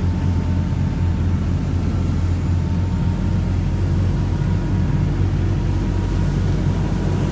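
A lobster boat's diesel engine running steadily under way, a deep even drone, with water rushing along the hull.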